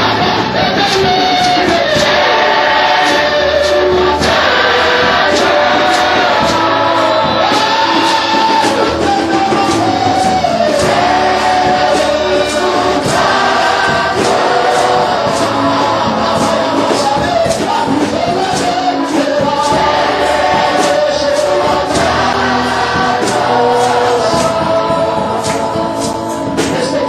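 Live gospel worship music: group singing over a band with a steady drum beat.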